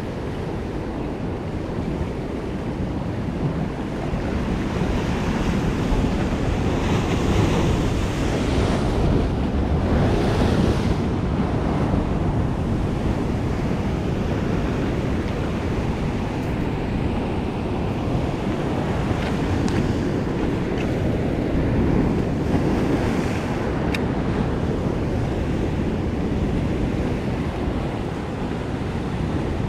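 Ocean surf breaking and washing over rocks in a continuous rushing wash, swelling louder a few times, with wind buffeting the microphone.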